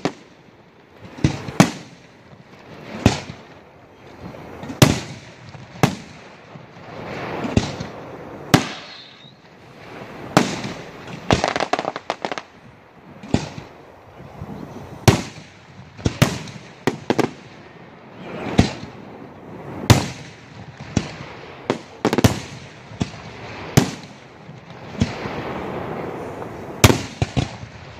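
Aerial firework shells bursting in a display: sharp bangs every second or two, some in quick pairs, with a rolling echo between them.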